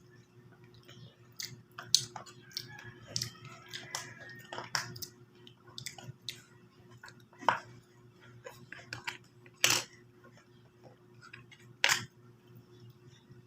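Spoon and fork clinking and scraping on a plate while eating, in scattered irregular clicks, the sharpest about two, seven and a half, nine and a half and twelve seconds in, over a steady low hum.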